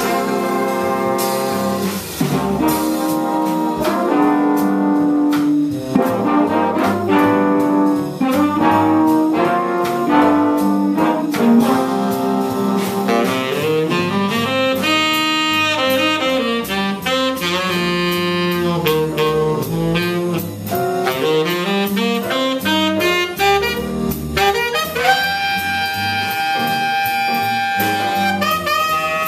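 Jazz big band playing live: trumpets and trombones playing ensemble figures behind a tenor saxophone solo. Near the end one long note is held over the band.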